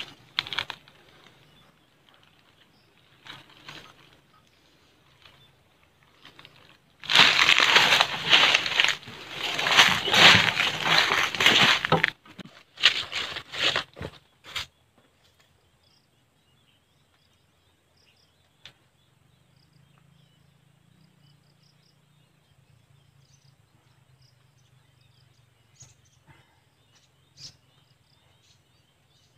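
A burst of close rustling and crackling lasting about five seconds, with a few shorter rustles after it. Then a faint chirring of insects in the background.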